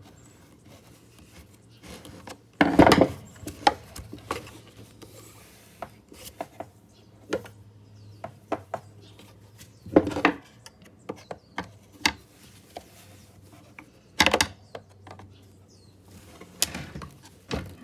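Scattered knocks, clicks and scraping of a hand tool poking and prying at the parts inside a Bosch hammer drill's housing during a teardown, with the heaviest knocks about three, ten and fourteen seconds in.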